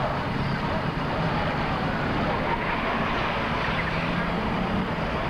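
Car engine running steadily as it cruises slowly past, over the dense noise of a large street crowd with the odd shout.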